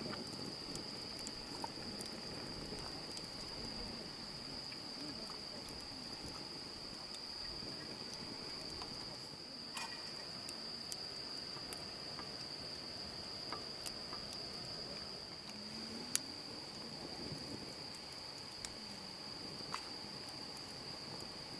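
Insects trilling continuously at one steady high pitch, with scattered sharp clicks, the loudest about two-thirds of the way through.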